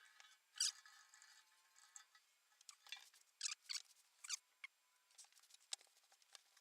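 Faint, irregular clicks and scrapes of the old metal snowmobile fuel tank being handled and turned over while it is checked for rust.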